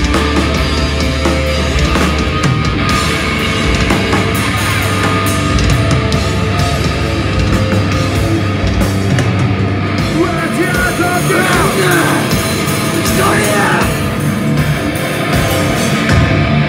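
A live rock band playing loud, heavy, aggressive music on electric guitar, bass guitar and drums, with no pause.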